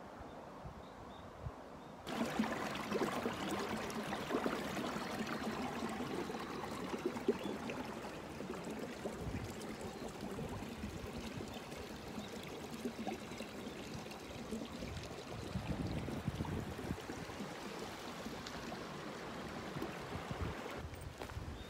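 Small stream flowing, its water running and trickling over stones in a steady rush that starts abruptly about two seconds in, after a short stretch of quiet outdoor ambience.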